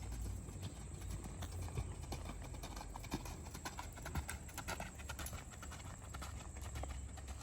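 Horse hooves clip-clopping: a run of quick, irregular hoofbeats.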